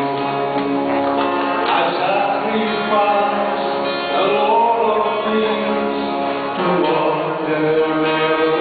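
Two men singing a gospel song as a duet, accompanied by guitars.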